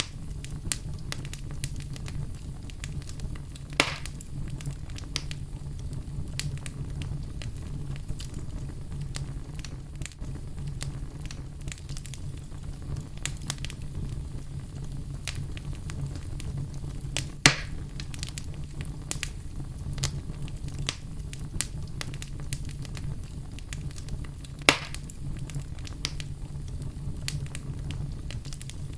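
Wood fire burning in a fireplace: a steady low rumble of flames with frequent small crackles, and three louder pops, about four seconds in, midway and near the end.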